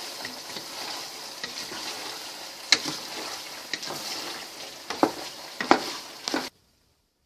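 Pork leaf fat sizzling steadily as it renders in a pot, with a spoon stirring and knocking against the pot several times. The sound cuts off suddenly near the end.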